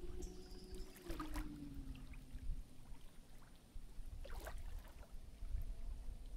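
Small waves lapping at the flooded lake shore, with two louder sloshes, one about a second in and one past the middle, over a low wind rumble on the microphone. A faint distant motor hum slides down in pitch and fades out in the first couple of seconds.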